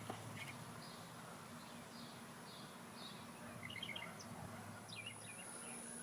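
Faint outdoor ambience with small birds chirping on and off, including a few quick runs of chirps past the middle and near the end, over a steady high-pitched whine.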